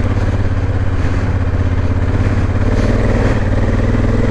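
2018 Honda Africa Twin's parallel-twin engine pulling up a loose gravel hill, its traction control cutting power. The engine note rises a little about two-thirds through.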